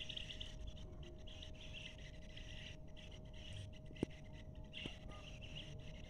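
A flock of small birds twittering: short high chirps in irregular clusters. A faint steady hum lies underneath, and there is one sharp click about four seconds in.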